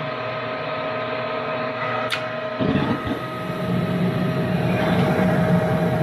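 Gas furnace going through its ignition sequence: its motors run with a steady hum, a sharp click comes about two seconds in, and then the burners light and keep burning with a low rumbling rush.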